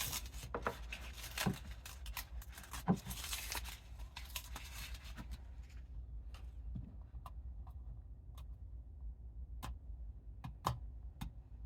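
Backing being peeled off double-sided tape, making irregular crackly noise for the first few seconds, followed by a scattered series of light clicks and taps.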